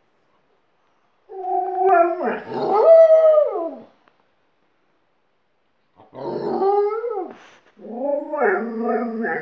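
Dogs howling in long, wavering howls: an Alaskan Malamute and a smaller second dog that has learned to howl from it. One stretch of howling runs from about a second in to about four seconds, and a second starts about six seconds in, with a lower howl from the malamute near the end.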